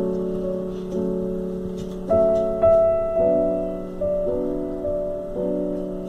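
Background piano music: soft chords struck about once a second, each left to fade.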